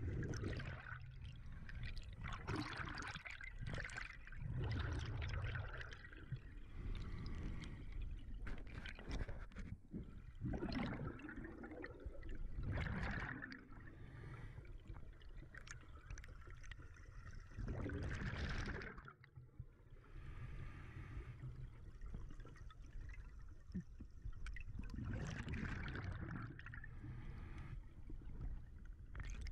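A scuba diver breathing through a regulator underwater: exhaled air bubbling out in repeated bursts every few seconds, with quieter pauses between breaths.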